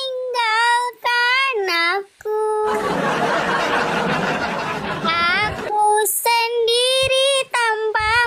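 A woman singing in a high voice, with long held notes that bend and waver. A stretch of rushing noise cuts in about three seconds in and lasts about two seconds.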